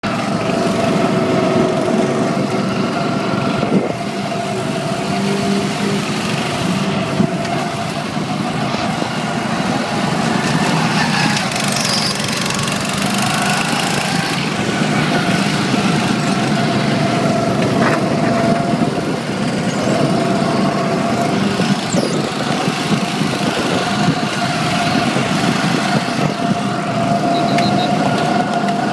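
Go-kart engines running steadily under way, heard from inside a moving kart: a constant small-engine drone that holds nearly the same pitch throughout.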